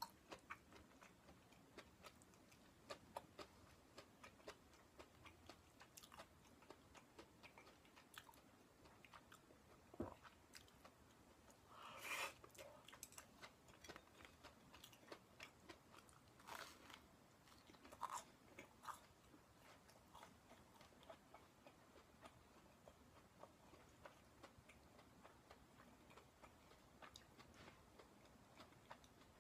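Faint close-miked chewing and mouth sounds from eating stir-fried vegetables and toast: many soft short clicks, with a few louder ones around the middle.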